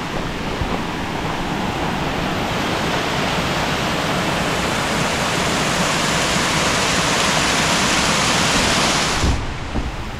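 Lower Catawba Falls rushing: a steady wash of falling water that grows gradually louder, then falls away sharply near the end.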